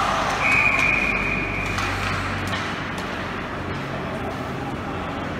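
A referee's whistle blown once, a single steady high note held for about a second and a half, over a steady background din with a few sharp clicks.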